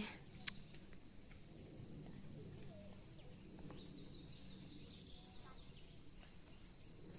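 Quiet outdoor ambience: faint distant bird calls over a steady high-pitched hum, with a short run of fast ticks in the hum about four seconds in and one sharp click about half a second in.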